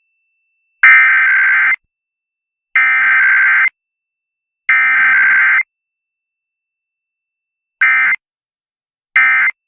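Emergency Alert System SAME data tones: three harsh, buzzy digital bursts of about a second each, a second apart, carrying the test's header code. Near the end two much shorter bursts of the same sound follow, the end-of-message code.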